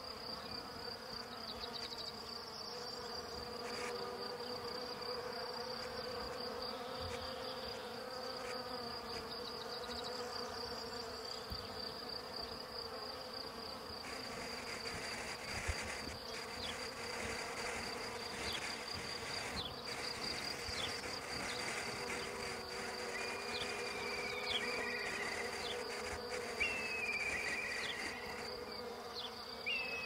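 Bees buzzing: a steady hum with a pulsing high-pitched chirr running over it. Short falling chirps join in near the end.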